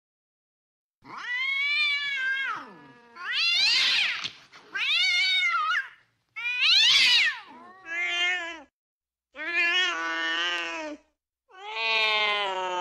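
Domestic cats caterwauling, the yowling of cats mating: about seven long, wavering yowls that rise and fall in pitch, with short gaps between them, starting about a second in. The last yowl runs on past the end.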